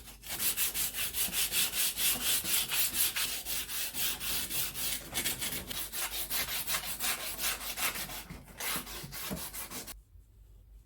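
Wooden pool cue being sanded by hand: rapid back-and-forth rubbing strokes, several a second, stopping near the end.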